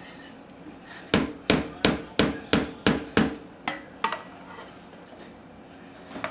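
A quick series of about nine sharp knocks, roughly three a second, growing weaker and stopping about four seconds in.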